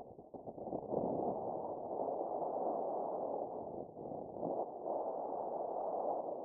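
Muffled rushing of wind over the microphone, swelling from about a second in, easing briefly near the middle, then rising again.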